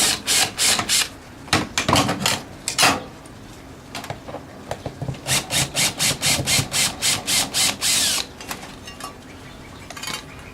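A hand tool scraping rhythmically, about four to five strokes a second, as the downpipe's lower strap is worked loose. The strokes come in two runs, with a few single knocks between them.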